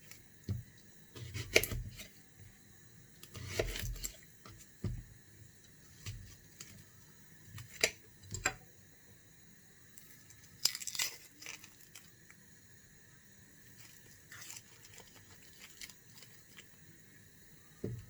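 An onion being prepared by hand: scattered crackles and tearing of its dry papery skin, with a few dull knocks on the chopping board between quiet gaps.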